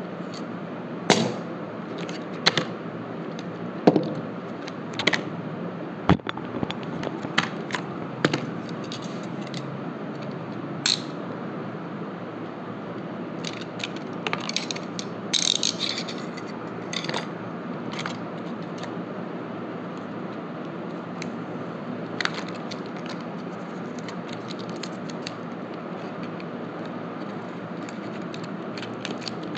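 Snap-off utility knife being taken apart and its blade handled: scattered sharp clicks of the ratcheting blade slider and the metal blade, a quick run of clicks and scrapes in the middle, then only an occasional click over steady background noise.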